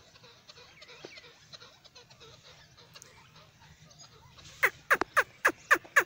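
Francolin (teetar) calling: a quick run of about six loud, sharply falling notes near the end, after a few seconds of faint, scattered sound.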